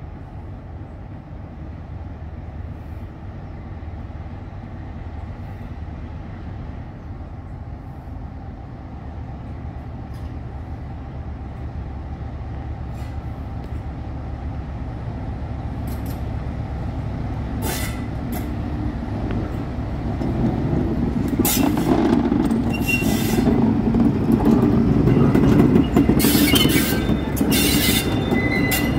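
Class 47 diesel locomotive's Sulzer V12 engine working as the loco approaches, growing steadily louder as it comes close. From about halfway, sharp high squeals from the wheels on the rails come more and more often as it passes.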